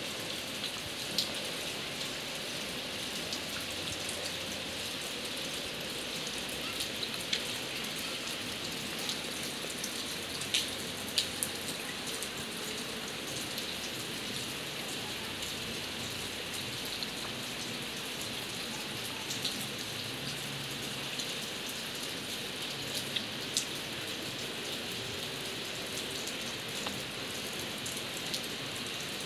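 Steady rain falling: an even hiss with scattered sharper drop ticks, a few louder ones about ten to eleven seconds in.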